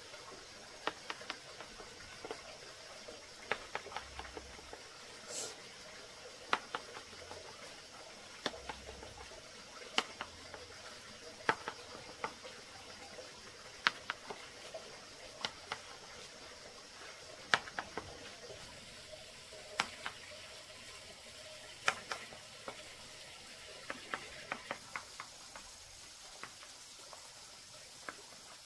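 A series of sharp clicks and light knocks, one or a few together every second or two, over a faint steady hiss.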